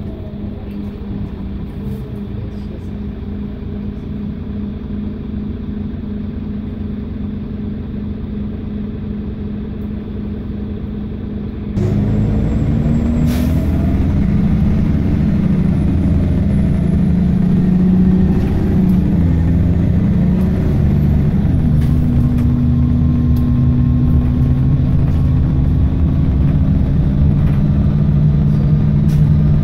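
Optare Tempo single-deck bus's diesel engine heard from inside the passenger saloon, idling steadily at traffic lights. About twelve seconds in it pulls away and gets louder, its pitch rising and dropping several times as the bus picks up speed, then it runs steadily at road speed.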